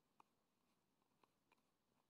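Near silence: faint room tone with four small, faint clicks.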